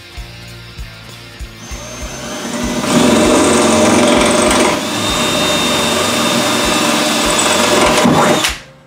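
Cordless drill running under load as it bores through the car's sheet-metal floor pan. It builds up about two seconds in, holds steady, and cuts off shortly before the end. Background music with a steady beat plays underneath.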